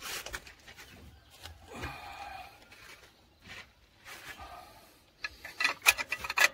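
Light metal clicks and scraping as wheel studs and a lug nut are handled against a rusty steel hub flange, with a quick run of sharper clinks near the end.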